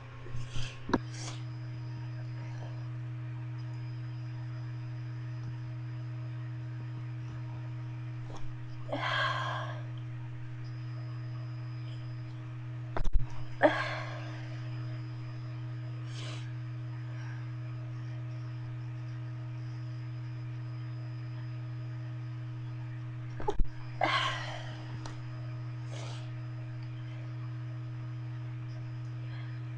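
A person stifling sneezes: a few short, breathy, choked bursts, the louder two led by a sharp knock from the shaking microphone. A steady low hum runs underneath.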